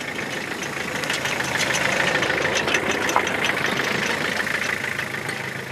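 Toyota pickup truck's engine running as the truck drives slowly up on a dirt track and pulls alongside, getting louder over the first two seconds, with many small ticks and crackles through the engine noise.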